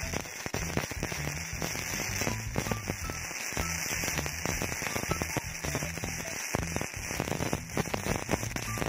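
MIG welder arc crackling continuously as a zigzag weave bead is laid over a straight weld.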